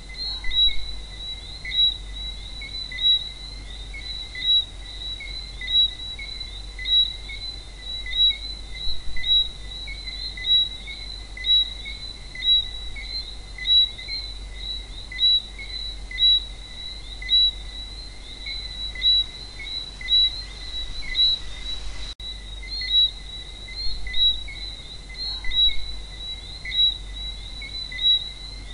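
Night chorus of Caribbean frogs: a dense, steady layer of high chirping whistles, with a louder chirp standing out about once every second and a half.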